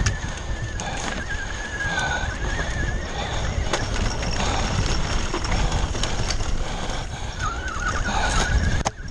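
A Foes Hydro 2 e-bike racing down a rough dirt trail, heard from a camera on the bike or rider: steady wind rumble on the microphone with clatter and knocks from the bike over bumps. A high, wavering whine comes and goes, over the first three seconds and again near the end.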